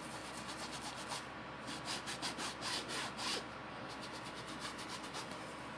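Paintbrush scrubbing oil paint onto fabric in quick back-and-forth rubbing strokes, at about four strokes a second, loudest between about one and three seconds in, then fainter.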